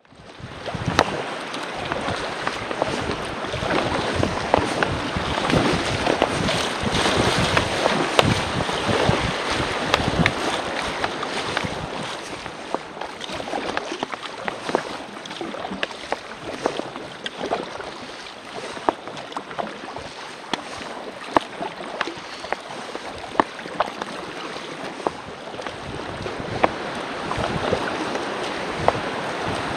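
River water rushing and splashing around an inflatable packraft being paddled downstream, with frequent short, sharp splashes and wind buffeting the microphone.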